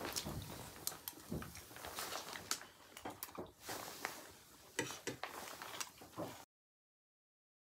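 Scattered light clicks and taps of a spoon on a plate while eating, over faint room hiss. The sound drops out to dead silence about six and a half seconds in.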